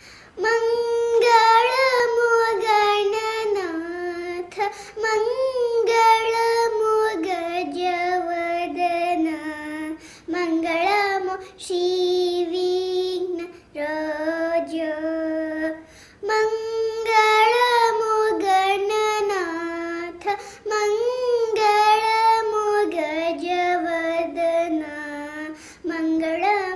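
A young girl singing solo in Indian classical style, in raga Sindhubhairavi, with no accompaniment: long, wavering, ornamented notes in phrases broken by short pauses.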